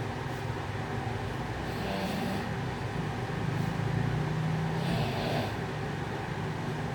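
A man snoring in his sleep: low, rough snores with a breathing cycle of about three seconds.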